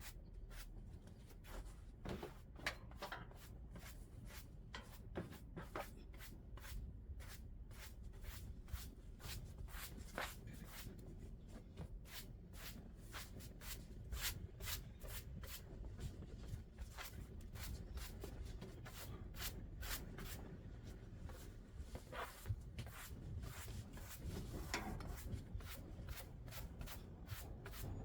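Rapid, scratchy strokes of a small hand broom, many short brushes each second, over a low rumble.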